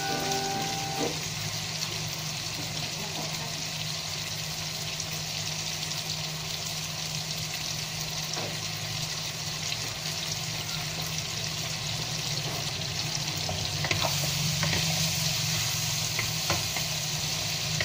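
Prawns, potatoes, chillies and spring onions sizzling steadily in a wok of turmeric sauce, stirred now and then with a wooden spatula, with a few clicks of the spatula against the pan near the end.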